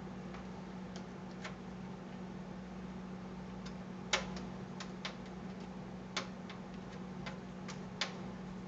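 Scattered sharp metallic clicks of a screwdriver and screws as a motherboard is screwed down into a computer case, irregular, about nine in all, the loudest about four seconds in, over a steady low hum.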